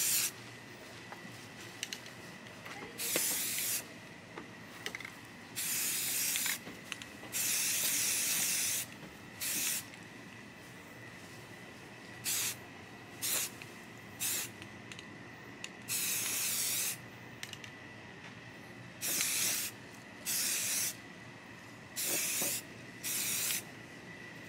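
Aerosol spray-paint can spraying in about a dozen short hissing bursts, each from a fraction of a second to about a second and a half long, laying down a camouflage base coat.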